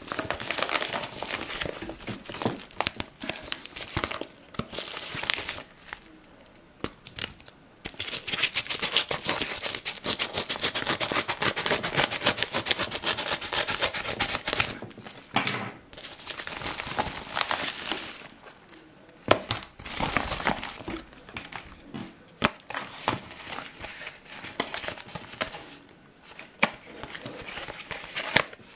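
Yellow padded mailer envelope being handled and torn open, its paper crinkling and tearing in irregular bursts. A long unbroken stretch of crinkling comes about a third of the way in.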